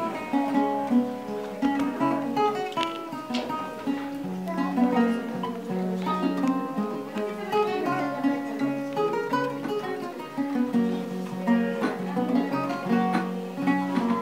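Background music: an acoustic guitar playing a melody of quick plucked notes.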